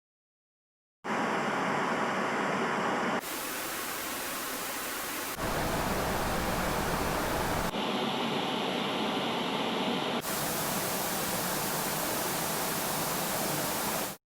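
A run of steady, even hissing noise in five back-to-back segments that switch abruptly every two to three seconds, some fuller and deeper, some thin and high. It starts dead about a second in and cuts off just as suddenly near the end.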